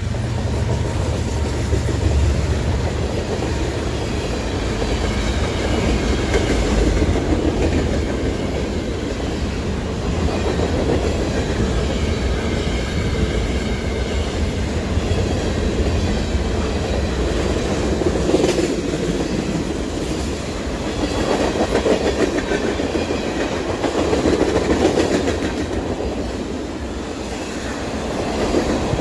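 A freight train's cars, covered hoppers and tank cars, rolling past close by, with a steady clickety-clack of steel wheels over the rail joints and a rumble that swells and fades as the cars go by.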